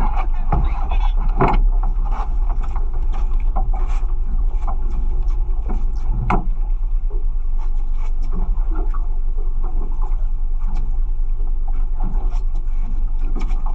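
Fishing boat's engine running steadily, a constant low rumble, with scattered clicks and knocks on board; the sharpest knock comes about six seconds in.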